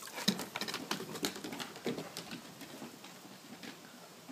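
Irregular light taps and clicks of dogs' paws and claws on a wooden deck, thinning out after about three seconds.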